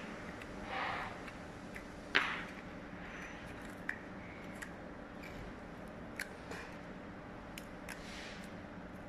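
Small clicks and ticks of hands working a VHS cassette with tweezers and clear adhesive tape, splicing the broken tape ends, with one sharper click about two seconds in and a brief soft swish about a second in.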